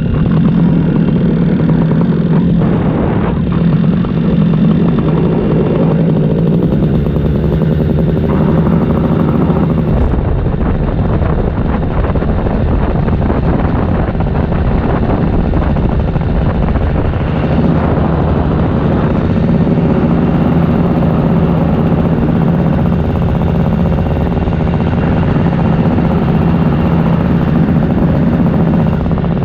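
Paramotor engine running steadily in flight, a constant drone with wind noise rushing over the microphone.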